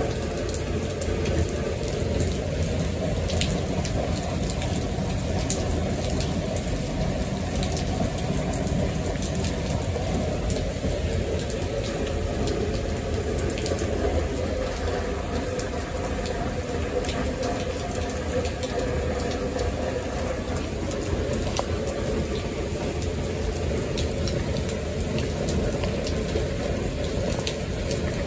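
Steady rain falling onto wet paving, with many single drops ticking and splashing.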